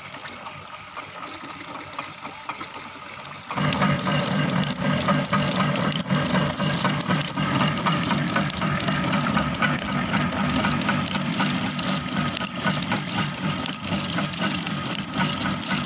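Power-driven sugarcane crushing mill running, its gears and rollers working with a steady high squeal over a low rumble. The sound steps up from a quieter start about three and a half seconds in.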